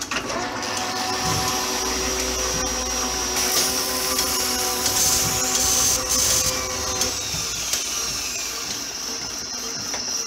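Steady machine-like whirring with several held tones and a high hiss, laid under animated opening titles as a sound effect. It cuts off suddenly at the end.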